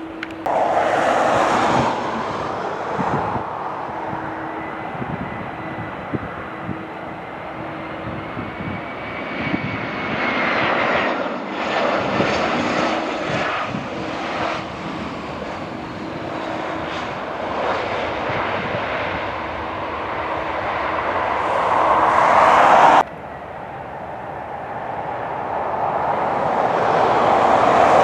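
Airbus A320-family jet airliner landing: steady jet engine noise with a low hum through touchdown and roll-out, cut off suddenly about 23 seconds in. A second airliner on approach follows, growing steadily louder.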